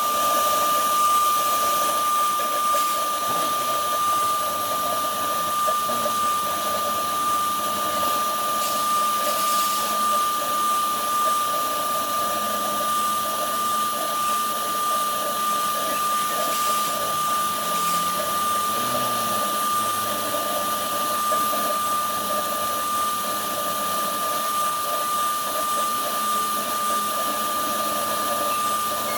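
Woodworking CNC router spindle running steadily with a high, constant whine while the cutter engraves MDF.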